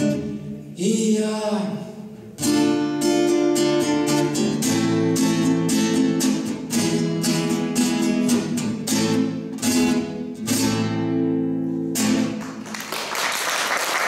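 Classical nylon-string guitar strummed in quick, steady chords as the song's closing instrumental, after a man's last sung note dies away. Applause begins near the end.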